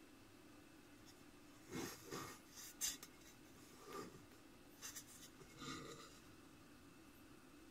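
Faint, short rubbing and scuffing sounds, about half a dozen between two and six seconds in, from hands handling a chrome headlight shell.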